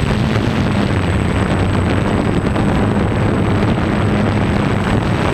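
DJI Phantom quadcopter's motors and propellers droning steadily, picked up by the camera riding on the drone. A low hum that wavers slightly in pitch as the motors adjust, over a noisy rush and a thin steady high whine.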